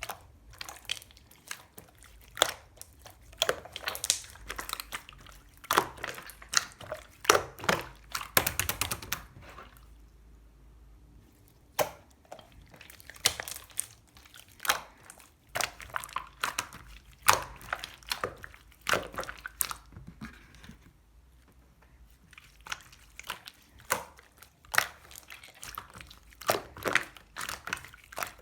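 Slime being squeezed, stretched and pressed by hand, giving an irregular run of sticky clicks and small pops, with a couple of brief pauses.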